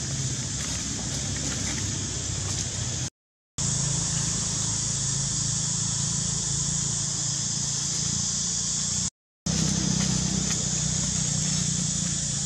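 Steady outdoor background noise: a low, even drone with a steady high hiss above it. It cuts out completely for a moment twice, about three seconds in and again about nine seconds in.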